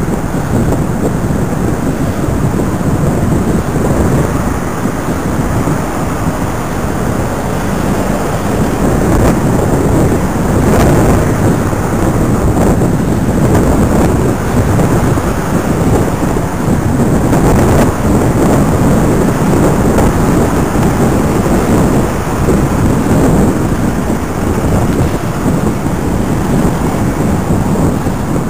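Wind buffeting the microphone of a cyclist's camera while riding, a loud steady low rumble, with passing road traffic mixed in.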